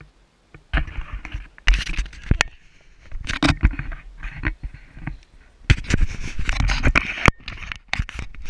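A hiker climbing stone steps with a handheld action camera: irregular scuffs, scrapes and knocks of footsteps and camera handling, with low wind rumble on the microphone.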